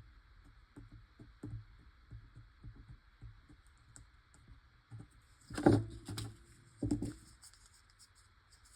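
Paper-craft pieces and tools handled on a work table: a string of light taps and clicks, then two louder knocks about five and a half and seven seconds in.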